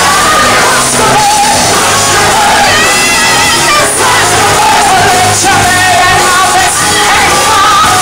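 A woman's lead voice and a backing chorus singing a Broadway show tune over a live band, with shouts from the singers.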